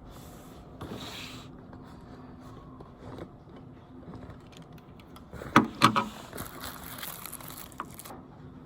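Handling noise on a hard surface: rubbing and scraping, with two sharp knocks close together a little past halfway, followed by a couple of seconds of rustling.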